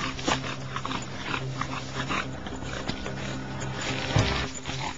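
English bulldog breathing hard and panting from exertion on a steep uphill climb, with short irregular scuffing sounds.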